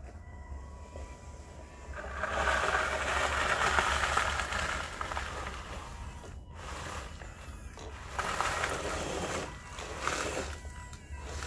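Gravel crunching and scraping under a radio-controlled model wheel loader (a converted Bruder Volvo L260H) as its tyres roll over loose stones and its bucket pushes into a gravel pile: one long stretch, then two shorter ones.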